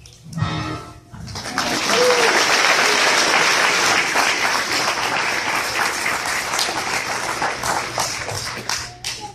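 Audience applauding, starting about a second in and lasting about seven seconds before it dies away.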